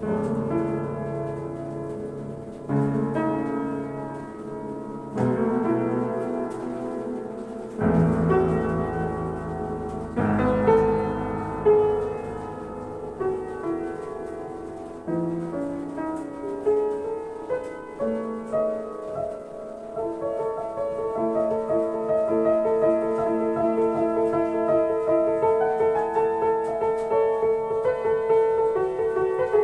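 Solo piano improvisation: heavy chords struck every two to three seconds and left to ring, then from about twenty seconds in a steadier flow of repeated mid-range notes.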